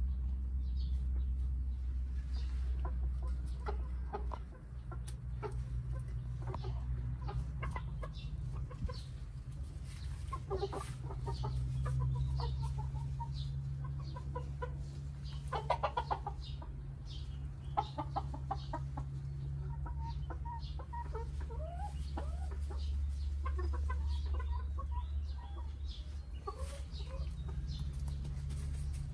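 Domestic hens clucking, short calls coming every second or so with a louder run of clucks about halfway through, over a steady low rumble.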